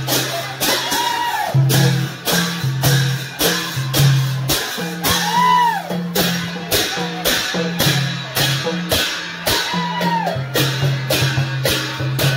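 Loud festival music with a fast, even percussion beat under a held low tone, and a melody that rises and falls in arches over it.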